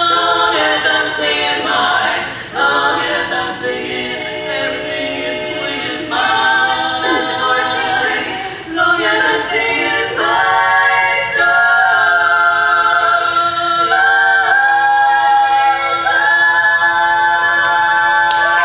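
Women's barbershop quartet singing a cappella in four-part close harmony, the voices moving quickly at first and then settling about twelve seconds in into a long, sustained final chord.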